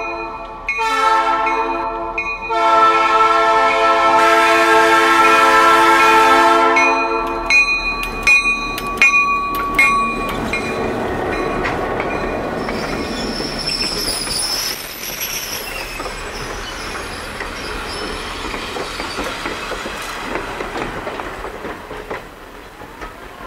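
Diesel locomotive's multi-note air horn sounding in blasts with two short breaks, the last blast long and cutting off about seven and a half seconds in. Then the locomotive and its passenger cars roll past close by, the wheels clicking sharply over the rail joints, with a faint high wheel squeal a little later.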